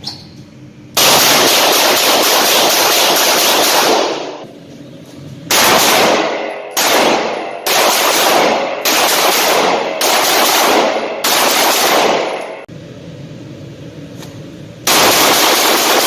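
Rapid gunfire in long, continuous strings of shots: one string of about three seconds, then six shorter strings of about a second each in quick succession, and another long string starting near the end.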